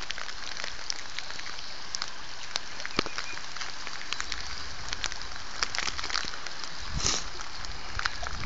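Outdoor ambience: a steady hiss with many scattered sharp ticks and crackles, and a brief low rumble about seven seconds in.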